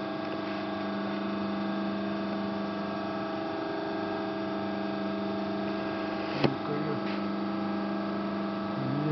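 Steady hum of a powered-up Amada Promecam HFBO 220-ton press brake standing idle, with one sharp click about six and a half seconds in.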